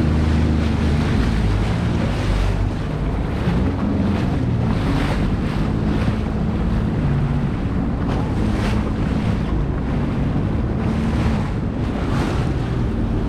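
Jet ski (Sea-Doo personal watercraft) engine running at speed over open sea, its low drone under a heavy rush of wind on the microphone and water spray, with repeated short surges of splash.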